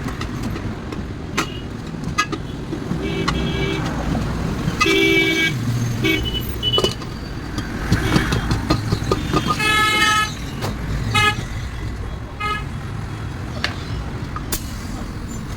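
Road traffic rumbling, with several short vehicle horn honks (the clearest about five and ten seconds in) and scattered sharp clicks and knocks.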